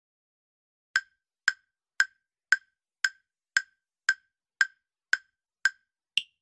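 Countdown timer sound effect: ten short, sharp ticks, two a second, starting about a second in, then a final higher-pitched tick near the end as the count reaches zero.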